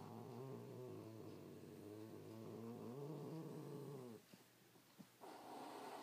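Domestic cat growling to guard the toy held in its mouth: one long, wavering low growl that stops about four seconds in, then starts again near the end.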